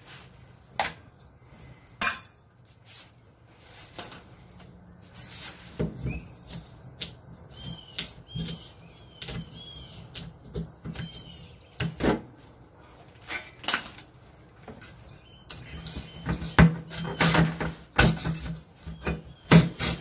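Irregular metallic clicks, knocks and scrapes of pliers working a cut-out disc free from a freshly cut hole-saw hole in a refrigerator's sheet-metal side, with short high chirps mixed in.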